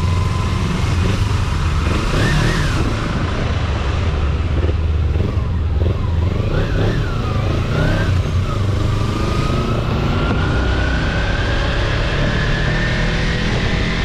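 Motorcycle engine running steadily under way, with a heavy low rumble, and a thin whine that rises slowly in pitch over the last few seconds as it picks up speed.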